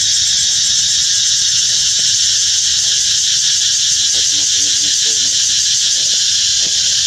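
Loud, steady chorus of insects, a dense high buzzing with a fine pulsing texture.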